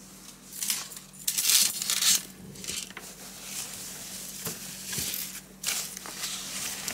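Swimwear fabric rustling and rubbing as hands grab and shift handfuls of bikinis in a full dresser drawer, in irregular bursts, the loudest about one and a half to two seconds in.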